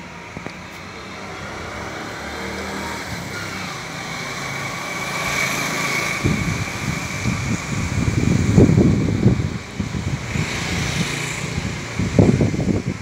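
A motor vehicle passing on the street, growing louder toward the middle. In the second half, irregular low rumbles, like wind buffeting the microphone.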